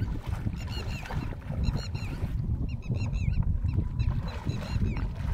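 Bare feet sloshing and splashing through shallow water in a flooded rice paddy, over a steady low rumble of wind on the microphone. Short runs of rapid, high chirps from birds come and go several times.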